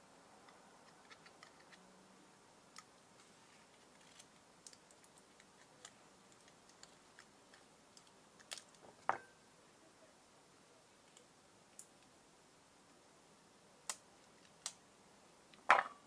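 Faint, scattered clicks and ticks of fingers and metal tweezers handling a Kindle's circuit board and flex cable. A sharper click comes about nine seconds in, and the loudest one near the end.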